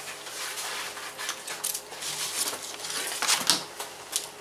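Light, scattered clicks and rustles as a s'more is picked up and handled over a paper plate.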